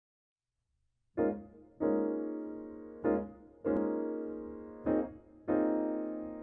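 Grand piano playing a slow introduction, starting about a second in: three pairs of chords, each a short chord followed by a held chord that rings and slowly fades.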